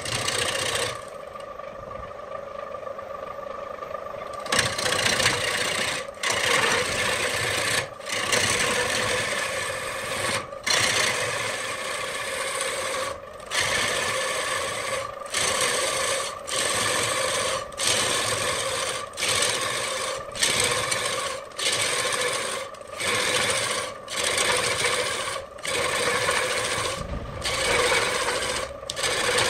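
Wood lathe spinning a large cylindrical wooden blank while a hand-held turning tool cuts into it, a loud shaving, rasping sound over the lathe's steady hum. The cut is quieter for a few seconds near the start, then breaks off briefly every second or two between passes.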